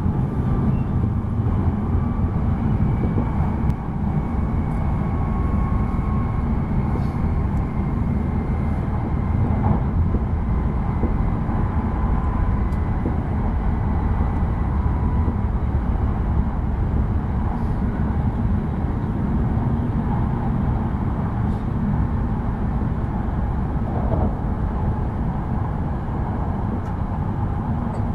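Cabin noise inside a Tohoku Shinkansen high-speed train running at speed: a steady low rumble of the running gear, with a faint high whine over it that fades out about halfway through.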